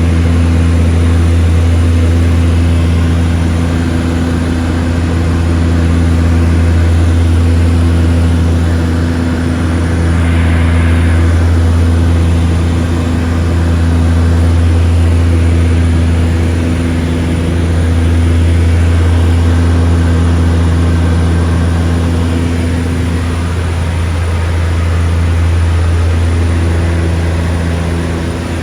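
Seaplane's propeller engines running steadily in flight, a loud low drone that swells and fades slowly every few seconds.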